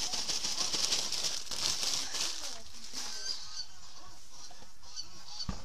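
Dry homemade groundbait pouring from a plastic bag into a plastic bucket, with the bag rustling and crinkling as it is shaken out; it dies down about two and a half seconds in.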